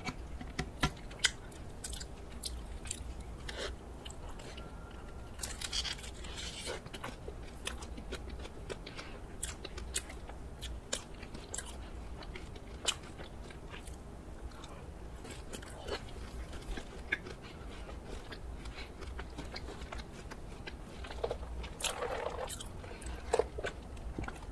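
Close-up eating sounds: crisp bites and chewing of a Nutella croffle topped with cream, with many small clicks. Near the end comes a sip through a straw.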